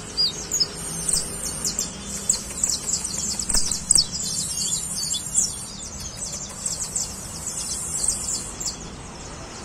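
Caged saffron finch singing: long runs of rapid, sharp, high chirps broken by short pauses.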